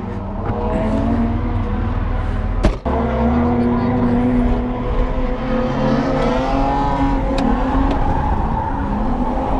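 Engine of an automatic Ford AU Falcon heard from inside the cabin, revving up and down as the car is driven hard. A single sharp knock comes about two and a half seconds in.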